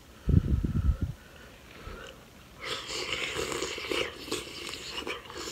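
Close-miked wet eating sounds: biting into and chewing a sauce-coated shrimp, a dense run of moist clicks and crackle starting about two and a half seconds in. Near the start, about a second of low bumps.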